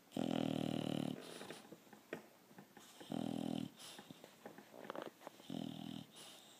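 Bulldog snoring: three loud, drawn-out snores about two and a half seconds apart, the first the longest and loudest, with faint crackles between them.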